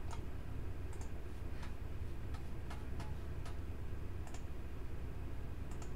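Scattered light clicks of a computer mouse and keyboard, irregularly spaced a few to the second, over a steady low hum.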